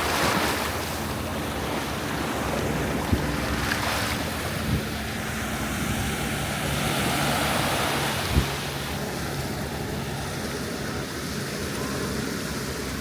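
Surf washing on the beach, with wind buffeting the microphone and a faint low steady hum underneath. A few short knocks, the sharpest about eight seconds in.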